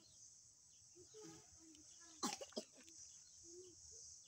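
Steady high-pitched insect drone with faint short wavering calls, broken a little after halfway by two short, sharp bursts close to the microphone.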